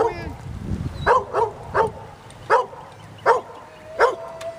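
Dogs stranded in a drifting canoe, one barking: about half a dozen sharp barks, with another dog's thin, steady whine in the last second or so. These are distress calls.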